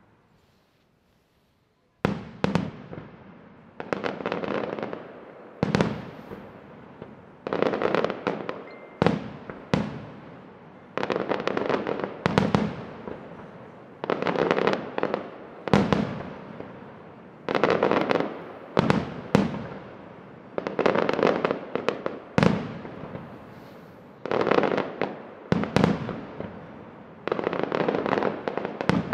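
Aerial firework shells bursting in a rapid series after about two seconds of near silence, roughly one every one to two seconds. Each is a sharp bang followed by about a second of dense noisy tail.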